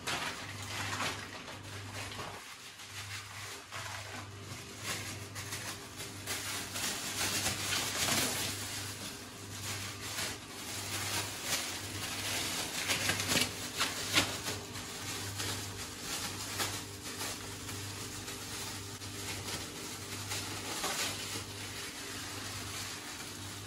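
Thin disposable plastic gloves crinkling as they are handled, then gloved hands squishing chunks of mutton through a wet yogurt-and-oil marinade in a bowl near the end, with scattered small clicks and rustles. A faint low hum pulses about once a second underneath.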